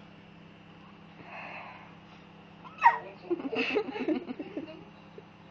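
A sudden squeaky hiccup about three seconds in, a short high note that falls steeply in pitch, followed by a second or so of choppy laughter.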